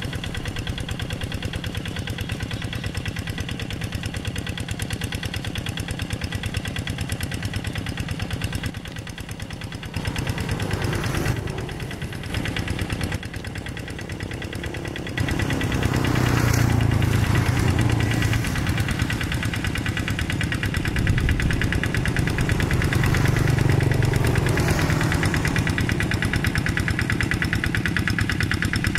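Single-cylinder Kubota diesel of a Quick walk-behind hand tractor running steadily under load with a fast, even knock. It grows louder about halfway through.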